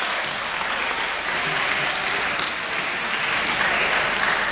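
Live wrestling crowd applauding steadily.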